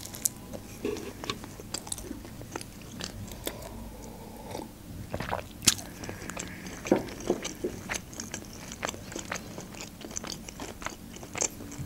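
A person biting into a slice of thick-crust pizza and chewing it, with scattered soft crunches and wet mouth clicks.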